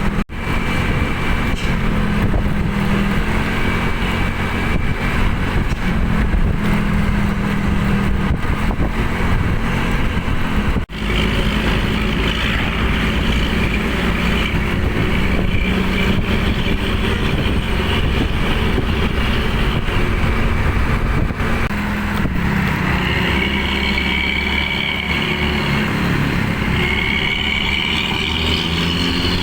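Tourist coach's diesel engine running with a steady low drone, the 'ngorok' (snoring) sound its fans prize. Near the end a higher whine rises and falls twice as the engine revs.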